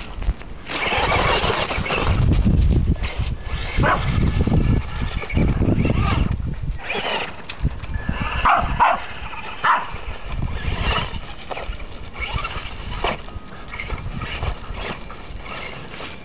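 Traxxas Stampede remote-control truck's motor whirring in repeated short bursts of throttle, mixed with a small dog's noises.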